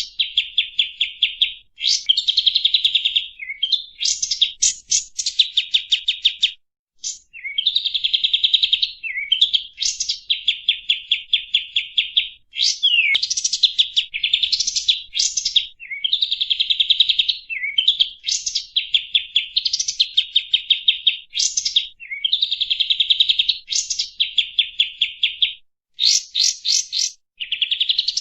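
Kapas tembak bird song, as used for a lure call: repeated phrases of rapid, fast-trilled high notes, each about one to two seconds long. Quick rising sweeps and brief pauses separate the phrases.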